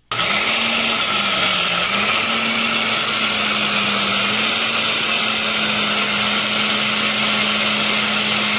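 Countertop jug blender switched on and running at full speed, pureeing chopped carrot, mango and ginger with water. It starts abruptly, its motor pitch dips slightly about a second and a half in, then it runs steadily.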